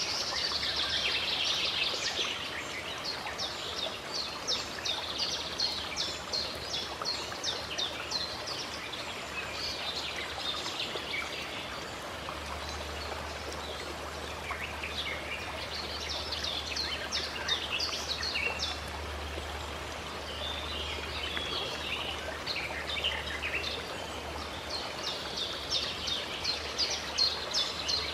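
Songbirds chirping in bursts of rapid high trills over a steady hiss of running water from a stream.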